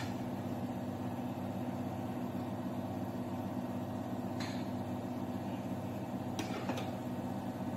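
A steady low machine hum, with a few light clicks of a spoon against a steel cooking pot as masala is spread over rice, three times in the second half.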